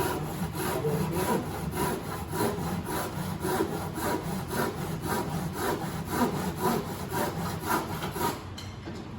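Hand saw cutting through wood in quick, even back-and-forth strokes, stopping a little over eight seconds in.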